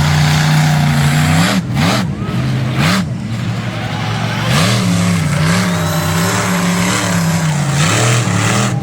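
Monster truck engine running loud, its pitch swinging up and down as the throttle is worked repeatedly, with brief drops where the throttle is let off.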